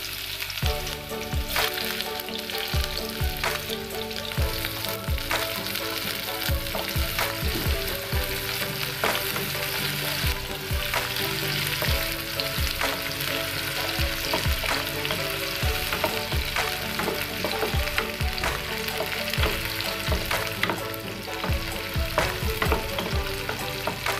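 Chopped garlic, shallots and chilies sizzling in hot oil as they sauté in a metal pot, frying toward golden and fragrant. A wooden spatula stirs them and knocks against the pan many times.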